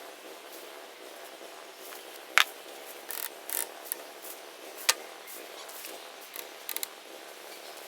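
Pipe pieces and T-joints being handled and fitted together to build a rack: two sharp knocks, short scraping rubs between them, and a quick run of small clicks near the end.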